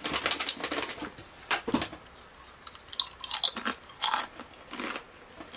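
A person chewing and crunching crisp food, with irregular crunches.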